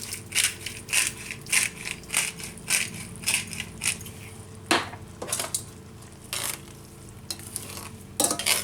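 A pepper mill being twisted over the pan, grinding in short crunches about twice a second for the first few seconds. Then a few scattered scrapes of a utensil as the spaghetti is tossed in the pan.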